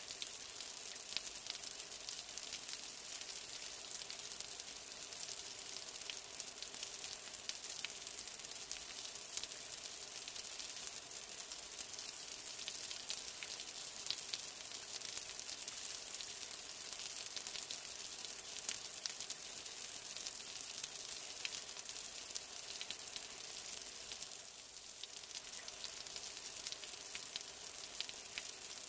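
Steady rain falling: a constant high hiss sprinkled with many small, sharp drop ticks, easing slightly for a moment near the end.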